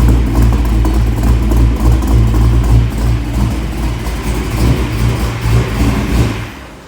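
347 cubic-inch stroker small-block Ford V8 running through long-tube headers, an X-pipe without catalytic converters and a Magnaflow muffler: a loud, deep rumble that falls away sharply about six and a half seconds in.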